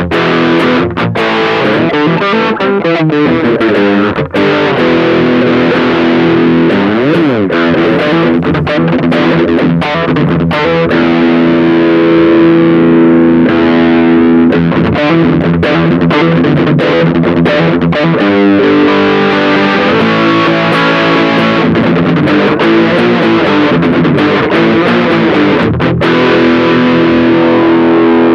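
Electric guitar played through a Caline High Peak distortion pedal: high-gain distorted chords and riffs, heard while the pedal's middle EQ knob is being set.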